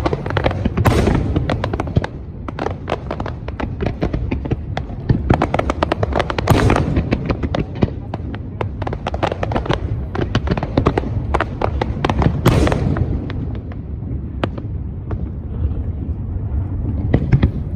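Aerial fireworks display: a dense run of crackling pops and bangs from bursting shells. Bigger booming bursts come about a second in, about six and a half seconds in and about twelve and a half seconds in, and the barrage thins out near the end.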